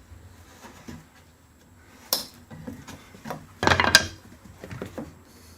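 Handling noises as cable and parts are moved about: scattered knocks, a sharp knock about two seconds in, and a short, loud clatter about three and a half seconds in.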